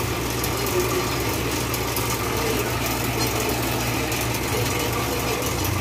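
Steady low hum of a bakery machine's electric motor running.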